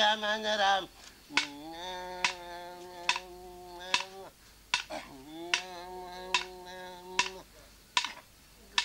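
A man chanting a Tiwi Kulama ceremony song, holding two long steady notes of about three and two seconds that fall away at the end, over a sharp percussive beat about every 0.8 seconds.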